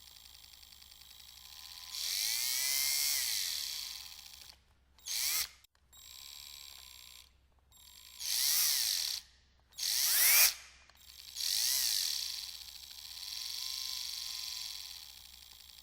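Household power drill run in about seven separate trigger pulls, its motor whining up and falling back in pitch with each burst. The loudest burst, about ten seconds in, rises in pitch.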